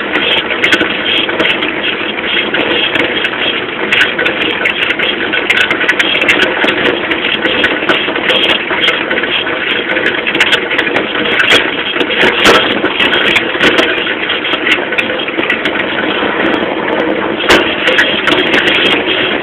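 Small moped engine running while the bike is ridden, a steady loud drone mixed with rushing noise and frequent short clicks and rattles.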